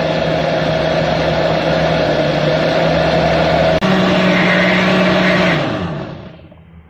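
Countertop blender motor running steadily, puréeing carrot, apple and banana with water into a smoothie. It breaks off for an instant a little under four seconds in, then winds down and stops near the end.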